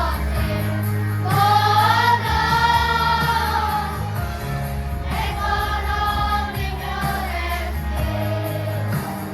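Children's choir singing long held notes over instrumental accompaniment with a steady bass line.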